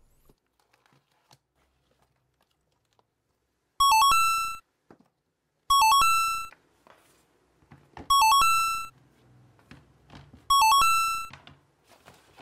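Four identical short electronic chime sound effects about two seconds apart, each a quick run of notes ending on a held tone, added in editing to mark each item as it is counted.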